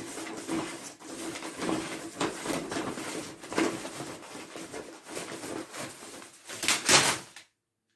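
Loose papers and receipts rustling and crinkling as a cat pushes into a pile of them, in irregular crackling bursts. The loudest burst comes near the end, and then the sound cuts off suddenly.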